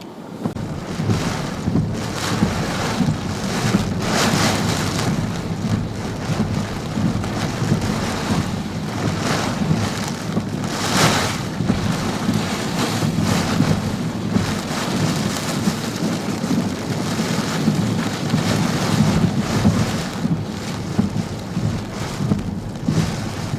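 Hurricane-force wind with driving rain, blowing steadily and surging in strong gusts every second or two, with a heavy rumble of wind on the microphone.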